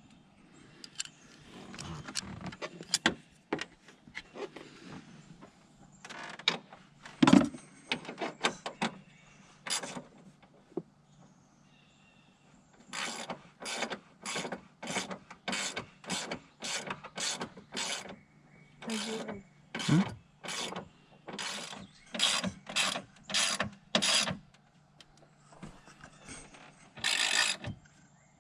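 Hand ratchet with a 13 mm socket clicking in repeated back-and-forth strokes, about two a second for long stretches, as bolts are run down to tighten the radiator in place.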